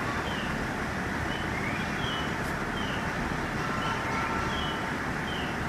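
Steady low rumble of a KiHa 48 diesel railcar's engine idling while the train stands waiting, with short high chirps repeating about once a second over it.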